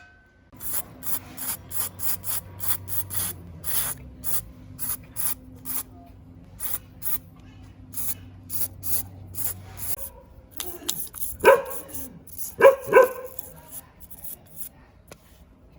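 Repeated short hissing sprays, about three a second, over a low steady hum that stops about ten seconds in. Near the end come a few louder ringing metallic knocks.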